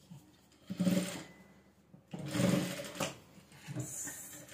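Sewing machine stitching down the folded end of a belt loop on a dress, running in three short bursts of about a second each with pauses between.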